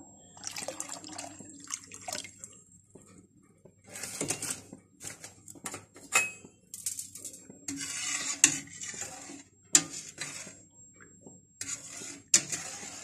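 Liquid poured into a stainless steel pot, then a spatula stirring the syrup and knocking against the pot several times.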